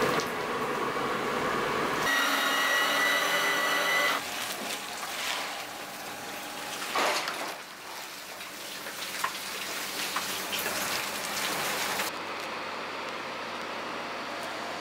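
Steam hissing and bubbling from a large boiling tank of mantis shrimp. About two seconds in it gives way to a machine whine with several steady tones, then a quieter hiss with scattered light clicks and knocks.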